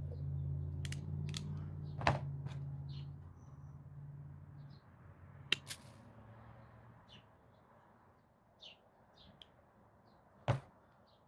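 Scattered sharp clicks from handling wire ferrules and a crimping tool while fitting them onto power-cord wires. The loudest clicks come about two seconds in, as a quick pair past the middle, and once near the end, over a low hum that fades out about four seconds in.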